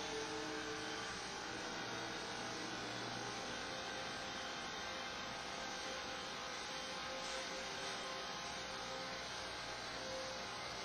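Steady electrical hum with a hiss, unchanging throughout.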